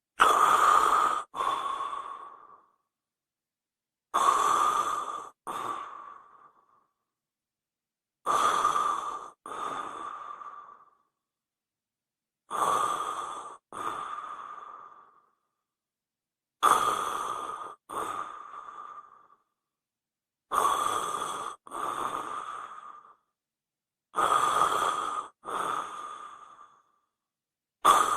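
A person snoring, breathy and hissing, repeated about every four seconds. Each snore comes in two parts broken by a short gap, the second one fading away, with a thin steady tone running through both.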